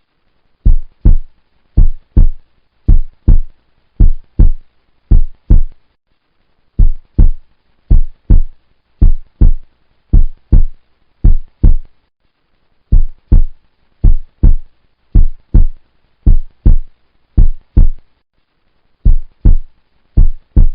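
Heartbeat sound effect: deep double thumps, lub-dub, about one pair a second, in runs of five pairs with a short pause between runs.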